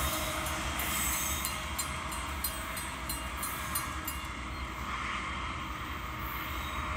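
Norfolk Southern freight train of tank cars running along the track: a steady low rumble of the train and its wheels on the rails, with a run of light clicks in the first few seconds.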